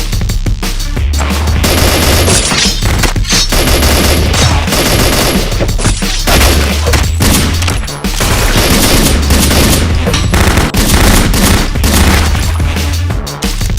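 Rapid gunfire and machine-gun bursts layered over loud electronic music with a repeating bass line.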